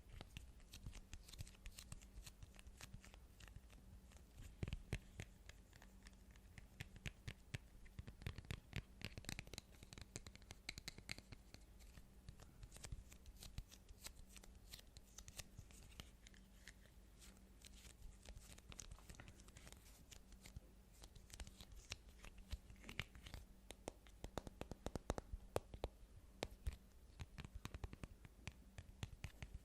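Fast, irregular tapping and scratching with fingertips and fingernails on objects: a dense run of quick, light clicks with no steady rhythm.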